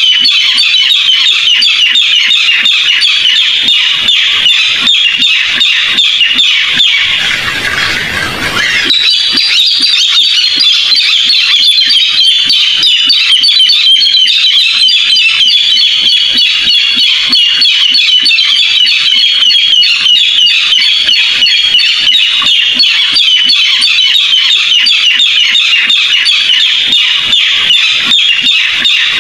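Barred rail calling: a continuous, rapid series of loud, harsh, high squawking notes. About seven seconds in, the calls give way for roughly two seconds to a hiss, then resume.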